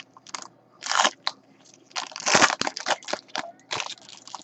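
Crinkling and rustling of trading-card packaging being handled while a pack of cards is opened: a series of short crackling rustles, thickest in the middle.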